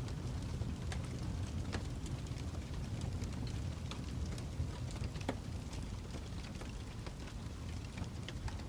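Wood fire crackling: irregular sharp pops and snaps of burning wood over a steady low rumble of the flames.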